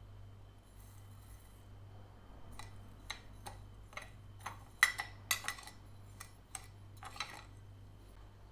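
Glass and dishware clinking and tapping as they are handled, a dozen or so sharp knocks in quick succession through the middle, over a steady low hum.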